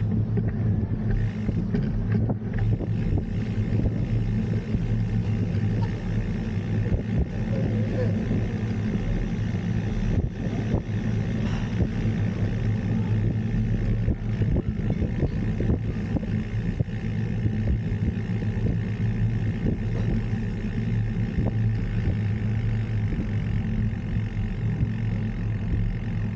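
Steady wind rumble buffeting the microphone of a camera moving along a street with a cyclist, mixed with road noise.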